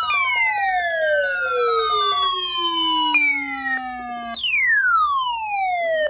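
Several Midland NOAA weather radios sounding their alert alarms together for a newly issued tornado watch: overlapping falling siren-like tones, with a rapid pulsing beep under them for about the first two seconds. The alarms cut off suddenly at the end.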